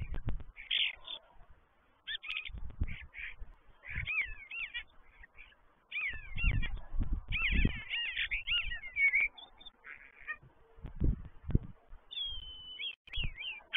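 Common starlings singing: a jumble of quick rising and falling whistles, clicks and rattles in spurts with short pauses, busiest from about six to nine seconds in. Intermittent low rumbles run underneath.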